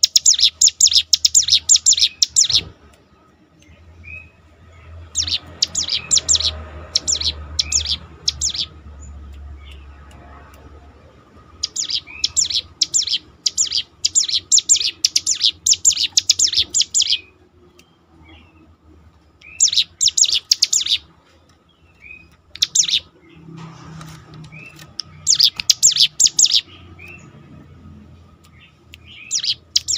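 Cigun (ciblek gunung), a small prinia, singing in bursts of rapid, sharp repeated high notes, each burst a few seconds long with short pauses between, over a faint low hum.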